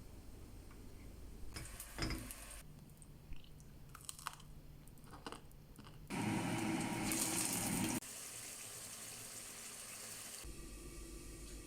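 Kitchen sounds in short, abruptly cut clips: a few light clicks and knocks from handling utensils and food, then about two seconds of water running from a tap, the loudest part, followed by a quieter steady hiss.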